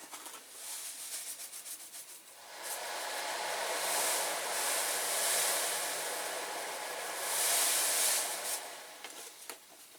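More caustic soda being poured into the paint-stripping bath: a few light clicks, then a hissing, rattling pour that swells twice and fades away.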